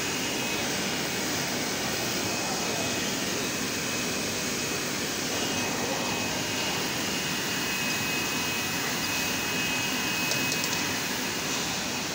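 Bottle-filling line machinery and conveyor running: steady mechanical noise with a thin, steady high whine, and a few faint ticks about ten seconds in.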